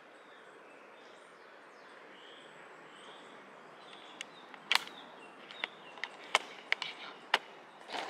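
Tropical jungle ambience: a steady, even hiss with faint chirps. From about halfway, a run of sharp clicks comes in, several of them loud. Heard as 'the most relaxing sound'.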